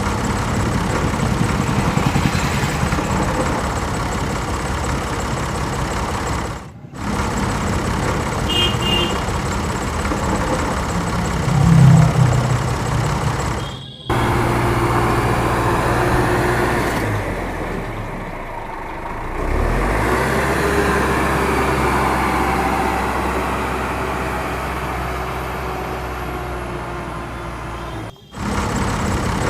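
A motor running steadily, cut off sharply and resuming three times.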